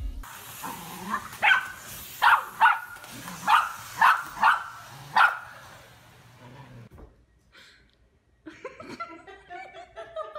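A dog barking: seven short, sharp barks in quick succession over about four seconds, starting about a second and a half in.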